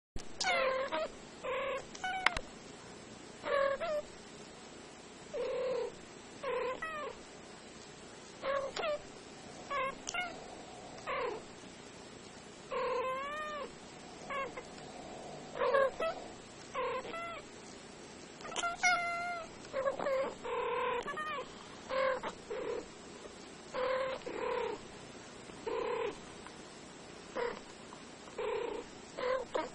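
Cats meowing back and forth in short calls, one or two a second, many bending up or down in pitch.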